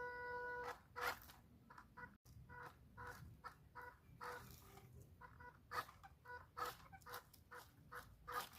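Fowl clucking, faint: one held call at the start, then a run of short, irregular notes mixed with small clicks.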